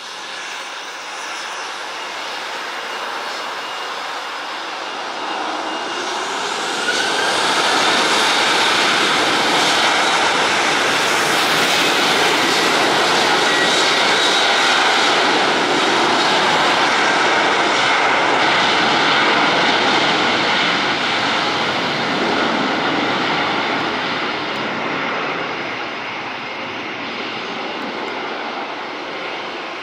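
Boeing 737-800's two CFM56-7B turbofan engines at take-off thrust during the take-off roll. The jet noise grows loud about seven seconds in, holds steady, then fades over the last several seconds as the aircraft moves away.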